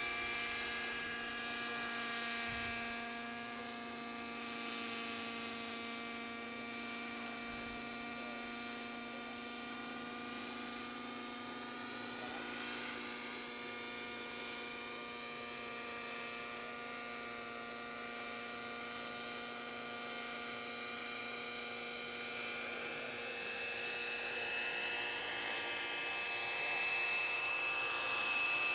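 Knight 50 3D radio-controlled model helicopter in flight: its engine and rotors give a steady, high whine made of several held tones, growing louder near the end as it comes closer.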